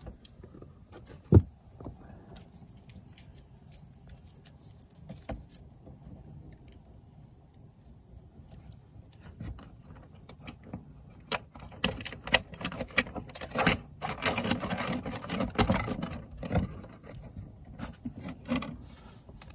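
Small clicks, light rattles and scraping of hands working on a plastic electrical box and its cable against an attic rafter, with one sharp knock about a second and a half in and a busier stretch of rustling and clicking about three quarters of the way through.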